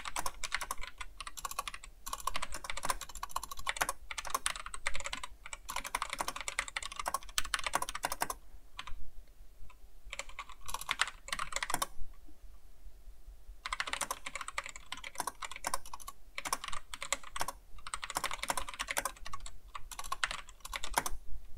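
Rapid typing on a computer keyboard: runs of quick keystrokes, broken by a couple of short pauses around the middle.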